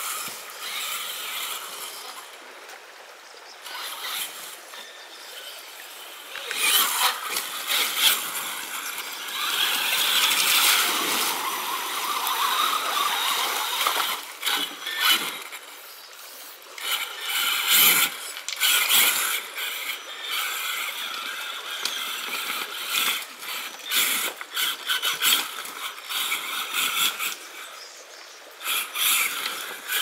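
Traxxas Summit radio-controlled truck with a Mamba Monster 2 brushless motor, its motor and geared drivetrain whining in uneven bursts as the throttle is worked over gravel and river rocks. Sharp knocks and scrapes of stones under the tyres come in between.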